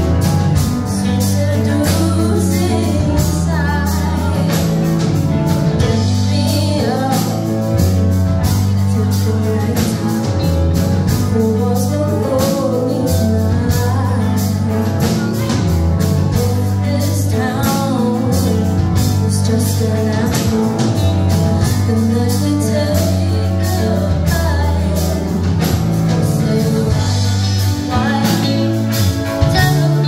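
Live band playing through a PA, with a singer, electric guitar, a steady drum beat and a heavy bass line.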